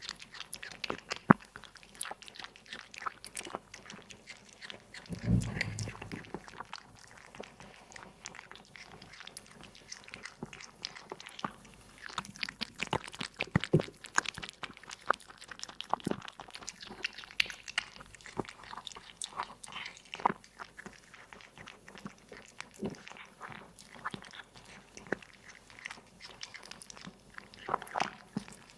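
A cat eating, chewing and crunching its food in many irregular sharp clicks. A brief low rumble comes about five seconds in.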